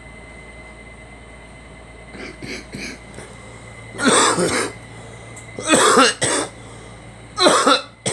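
A person coughing: two faint little coughs, then three loud bursts of coughing about a second and a half apart.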